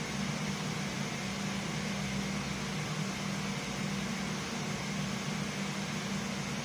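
Steady hum and even hiss of a running CNC horizontal milling machine, holding constant throughout.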